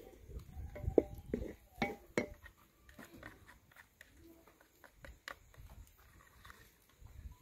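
Metal spoon clinking and scraping against a plastic bowl as an ingredient is stirred into cold water to dissolve it before it goes into the sauce. The sharpest clinks come in the first two seconds or so, then fainter scraping.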